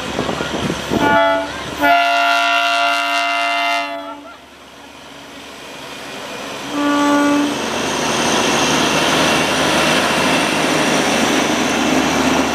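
Darjeeling Himalayan Railway narrow-gauge diesel locomotive sounding its horn: a short blast about a second in, a long blast of about two seconds, then another short blast about seven seconds in. From about five seconds in, the locomotive and its coaches pass close by with a steady, growing running noise that stays loud.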